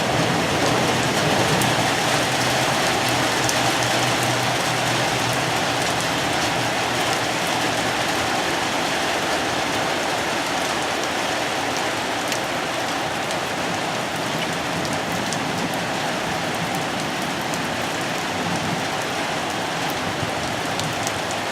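Steady rain falling, with a low rumble that fades away over the first several seconds.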